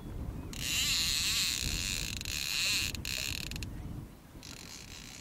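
Fishing reel whirring and clicking as a hooked pike is played on the bent rod, in one strong burst of about three seconds starting half a second in and a fainter one near the end.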